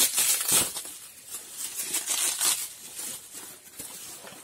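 Toy packaging rustling and crinkling as it is handled, in quick irregular bursts, loudest just at the start and again around two seconds in.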